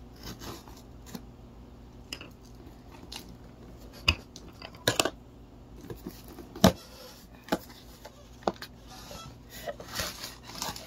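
Cardboard shipping box being opened by hand: packing tape pulled and torn and the flaps rustling, with a handful of sharp cardboard knocks and crackles, the loudest about two-thirds of the way in.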